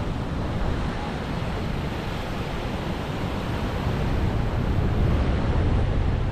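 Ocean surf breaking, a steady rush of waves with wind buffeting the microphone.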